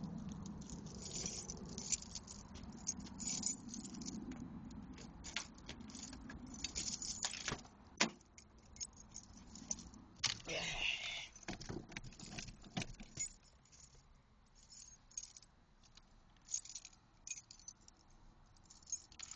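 Keys jangling amid small clicks and rattles of handling inside a car. There is a single sharp knock about eight seconds in and a brief burst of rustling around ten to eleven seconds.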